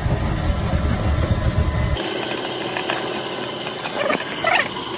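Small clicks and scrapes of wires and plastic connectors being handled and pushed into a motor controller's terminal block. A low steady rumble underneath stops abruptly about two seconds in.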